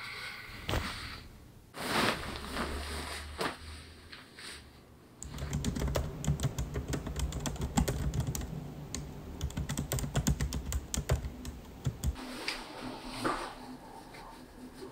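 Fast typing on a MacBook laptop keyboard: a dense patter of key clicks lasting about seven seconds in the middle. A few scattered soft knocks and rustles come before and after it.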